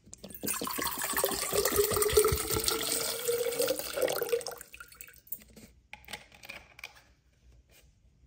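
Water poured from a bottle into an empty stainless steel Stanley 40 oz Quencher tumbler, splashing on the metal bottom with a tone that rises as the tumbler fills. The stream stops about four and a half seconds in, and a few drips follow.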